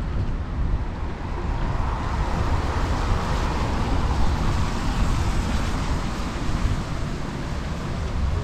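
A car passing on a wet street, its tyre hiss swelling from about two seconds in and fading by about six seconds, over a steady low wind rumble on the microphone.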